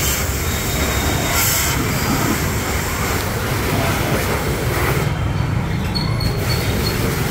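Volts-brand 4.5 HP, 200 bar single-phase high-pressure washer running under load, its motor and pump humming steadily under the hiss of the spray jet on a scooter. The hiss drops away about five seconds in while the hum carries on.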